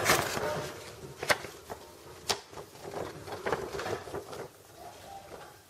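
Hands handling a cardboard box and its packing: rustling, with a few sharp knocks about a second and two seconds in.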